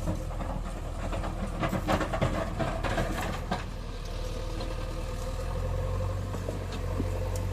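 Heavy diesel engine running steadily at low revs, with scattered knocks and clatter in the first few seconds.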